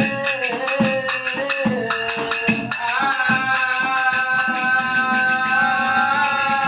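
Devotional folk singing: a voice holds long drawn-out notes, shifting to a higher held note about three seconds in, over a quick, even beat of drum strokes and jingling metal percussion.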